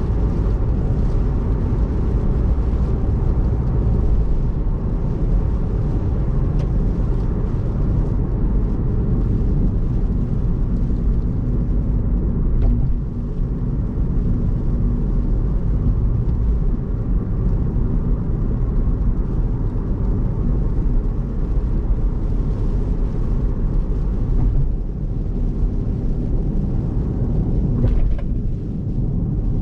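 Car driving at expressway speed in heavy rain, heard from inside: a steady low rumble of tyres on the wet road and the engine.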